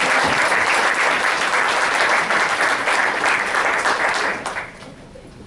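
An audience applauding, dense and steady, dying away about four and a half seconds in.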